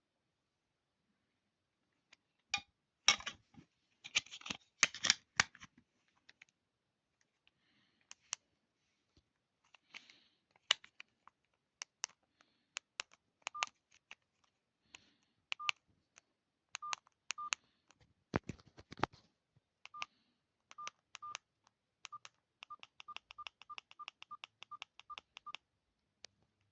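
Alcatel OT-217d mobile phone's keypad being pressed: sharp button clicks, many with a short single-pitch key beep. The beeps come faster near the end, about three a second. A burst of louder clicking and rattling comes a few seconds in as the phone is handled.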